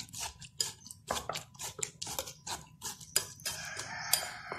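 Metal wire whisk stirring soaked biscuit crumbs and milk in a glass bowl, clinking against the glass about four or five times a second, turning into a steadier scraping near the end.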